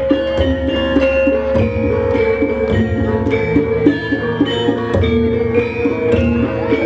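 Javanese gamelan ensemble playing: metallophones strike a quick, repeating pattern of ringing notes over hand-drum strokes.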